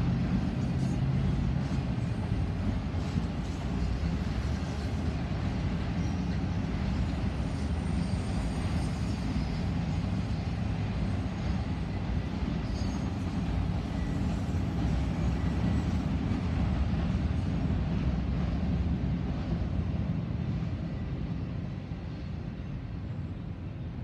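Autorack freight train rolling past: a steady rumble of steel wheels on the rails, easing off near the end.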